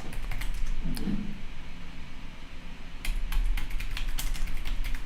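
Typing on a computer keyboard, keys clicking in two bursts: one at the start and another from about three seconds in, with a pause between.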